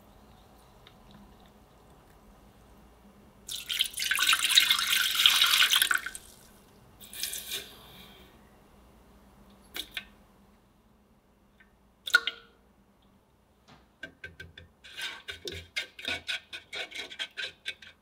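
Yeasted warm milk poured into a bread-machine pan, a splashing pour of about two and a half seconds, then a shorter smaller pour. A couple of single knocks follow, then near the end a spatula stirring the egg, sugar and milk in the metal pan with quick rhythmic clicks.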